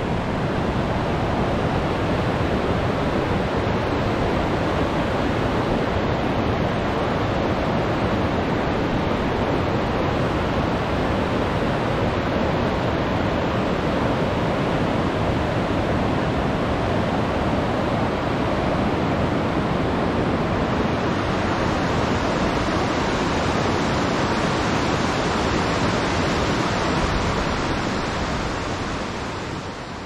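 Steady, even rush of fast-flowing river water, fading out near the end.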